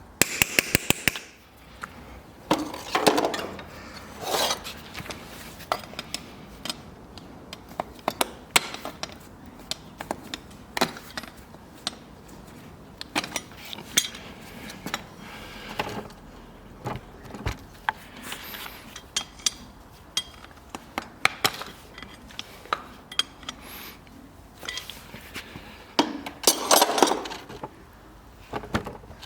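Farrier's metal hand tools working on a horse's hoof: irregular sharp metallic taps and clinks, with a few longer scraping sounds, two of them close together a few seconds in and another near the end.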